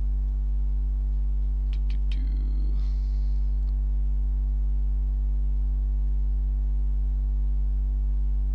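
Steady electrical mains hum in the recording, with a few short computer mouse clicks about two seconds in.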